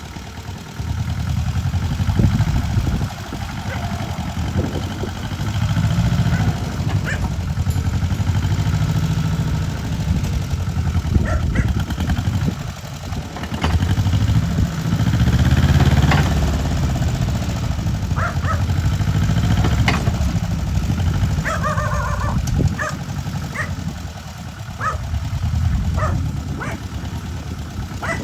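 Excavator's diesel engine running under load, its low drone swelling and easing repeatedly as the machine works, with scattered short, sharper sounds over it.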